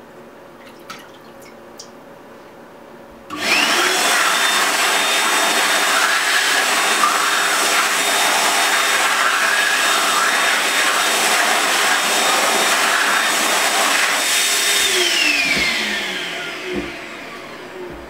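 A few faint drips of water, then about three seconds in the Biodryer Biolite hand dryer switches on with a sudden loud rush of air and a steady high motor whine, blowing on wet hands for about twelve seconds. It then cuts out, its motor winding down with a falling whine.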